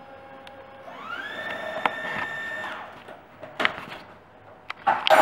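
Kitchen food processor fitted with its plastic blade, spinning up about a second in with a rising whine, running steadily for about two seconds, then winding down as it mixes flour and caster sugar. A few sharp plastic clicks and knocks follow, the loudest near the end.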